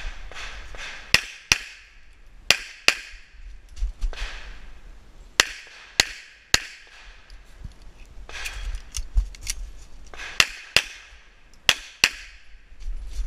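Semi-automatic pistol fired in quick pairs (double taps), about eleven shots in all, in short strings with pauses of a second or more between them as the shooter moves from target to target.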